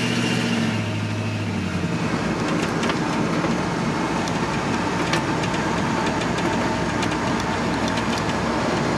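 1972 Chevrolet C10's factory 350 V8 pulling the truck down the road, heard from inside the cab. A steady engine note gives way about two seconds in to a rougher mix of engine and road noise.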